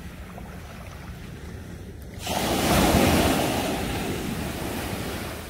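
A sea wave breaking and washing up the beach around a wader's legs. It starts suddenly about two seconds in, surges to its loudest and slowly fades as the water runs out. Wind rumbles on the microphone throughout.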